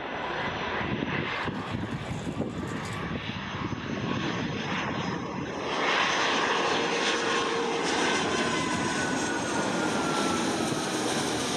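Airbus A330 twin jet engines on final approach with gear down, passing low overhead. The engine noise grows louder about halfway through, and a thin whine falls slowly in pitch as the aircraft goes by.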